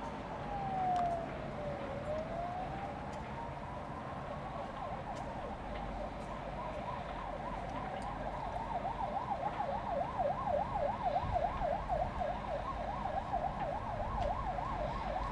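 An emergency vehicle siren sounding. It first makes a slow wail that falls and rises again, then about halfway through it switches to a fast yelp that rises and falls several times a second.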